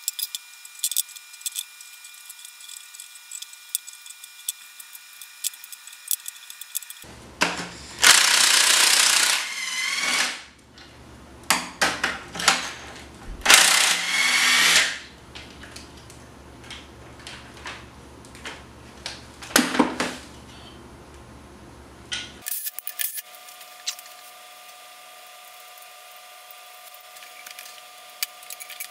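A cordless power tool run in two loud bursts of a couple of seconds each, with a shorter one later, loosening bolts on the engine. Before and after, light clicks and clinks of hand tools and parts.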